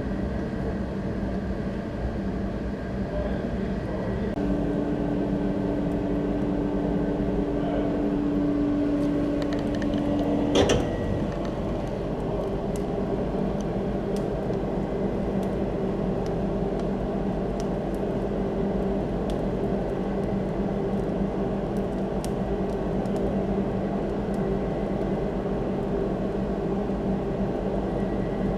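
Coal forge air blower running with a steady hum; an extra higher tone joins about four seconds in and cuts off with a sharp click about ten seconds in, followed by faint scattered ticks.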